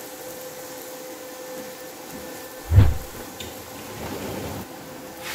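A ghee-greased paratha sizzling on a hot iron tawa, a steady hiss, with a single dull low thump about three seconds in.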